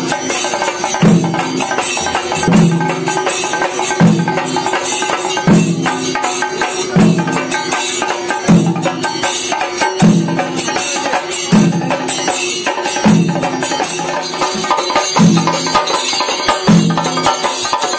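Chenda drums beaten with sticks in a dense, fast rhythm, with a deeper beat about every one and a half seconds.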